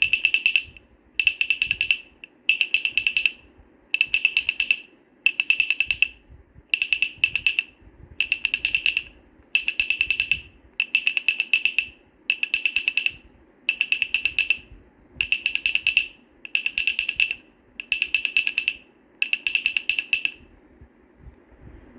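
Wooden baby rattle shaken or turned in regular bursts, each a quick run of sharp clacks, about one burst every second and a quarter; the bursts stop shortly before the end.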